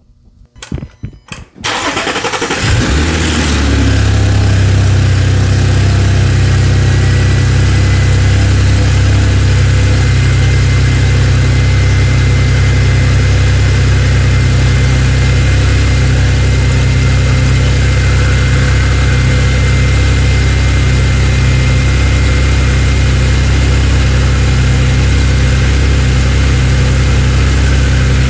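Audi 3.0T supercharged V6 starting: it cranks briefly, catches about two seconds in, and settles into a steady idle.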